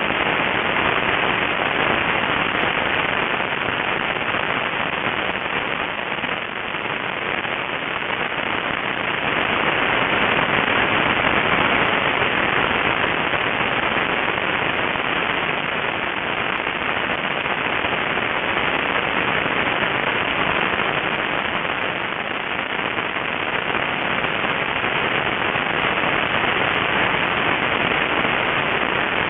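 Loud, crackling air rush over a small onboard camera's microphone on a radio-controlled model plane in flight, steady throughout and swelling a little around the middle.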